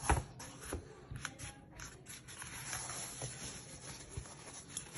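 Folding XPE foam seat mat handled by hand as it is turned over: a knock right at the start, then scattered light clicks and rubbing of the foam panels.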